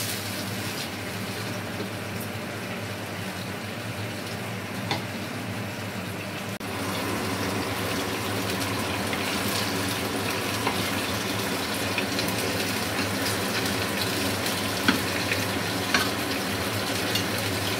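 Marinated chicken legs frying in oil in a pan, a steady sizzling and bubbling as they cook in the liquid the chicken has released. The sound gets a little louder about six and a half seconds in, with a few faint clicks.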